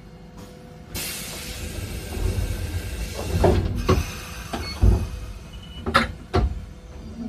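Randen tram car standing still: a sudden hiss of compressed air lasting about three seconds, followed by a run of heavy clunks and knocks from the car's mechanism.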